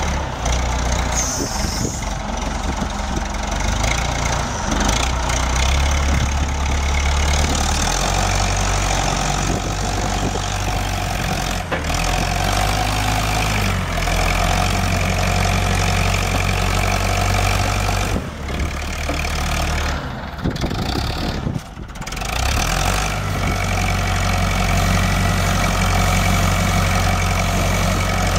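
The Perkins A4.236 four-cylinder diesel of a Massey-Ferguson 50E tractor loader runs steadily as the tractor drives and works its loader. The engine note breaks off and changes abruptly a few times.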